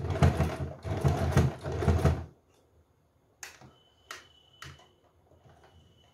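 Electric sewing machine running at a rapid stitching rhythm for about two seconds as it sews a folded hem, then stopping abruptly. A few sharp clicks follow.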